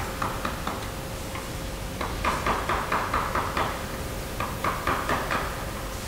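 Hand-held wood-carving chisel cutting into an oak carving in short, quick strokes. It makes runs of small clicks, several a second, with brief pauses between the runs.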